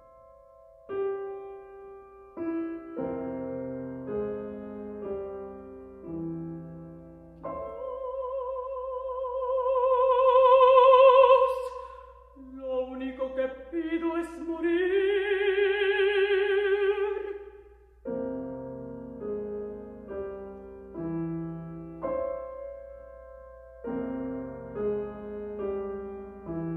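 Grand piano chords, then a female opera singer sings a phrase alone with strong vibrato, peaking on a loud, high held note near the middle. The piano chords resume for the last third.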